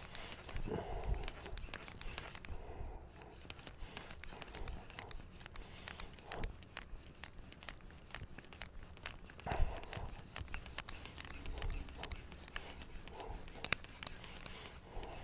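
Knife blade of hard powdered R2/SG2 steel stroked back and forth on a wet 1000-grit Japanese waterstone: a quiet, gritty scraping made of many fine scratches, stroke after stroke.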